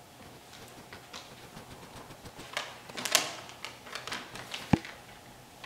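Scattered light clicks and scratchy rustling from a whiteboard marker and sheets of paper being handled, with one sharp click about three-quarters of the way through.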